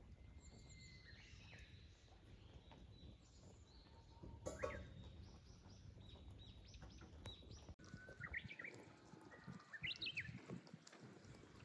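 Small wild birds chirping and singing, many short high calls, with a brief louder call about halfway through.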